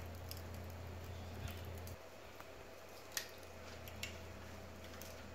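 Faint steady hiss of a gas stove flame burning under lumps of coal, with a low hum that drops about two seconds in and a few faint clicks.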